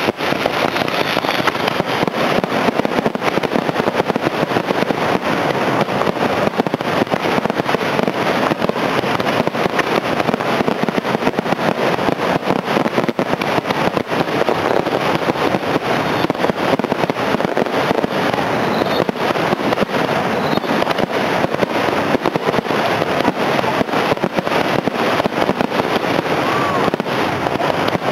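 Aerial fireworks display: many shells bursting in quick succession, a continuous barrage of bangs and crackle with no pause between reports.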